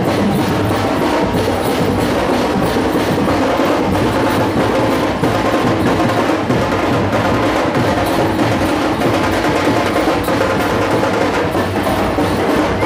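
Loud percussion music: drums beaten fast in a steady, driving rhythm.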